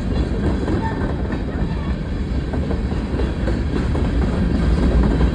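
A CSX mixed freight train rolling past close by: a steady, loud, low noise of steel wheels running on the rails.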